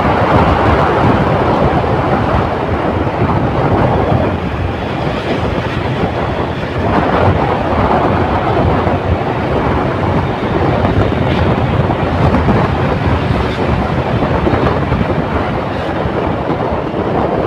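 CBZ motorcycle being ridden at speed: a heavy, steady rumble of wind buffeting the microphone, mixed with engine and road noise.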